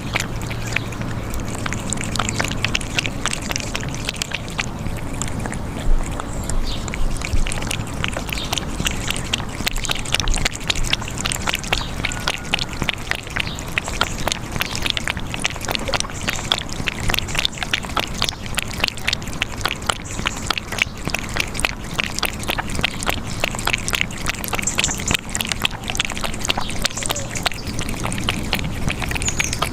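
Kittens eating: a dense, continuous patter of small wet clicks from lapping and chewing food, with a few brief high squeaks.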